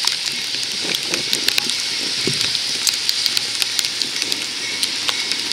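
Steady rain hiss with many irregular sharp taps of raindrops striking close to the microphone.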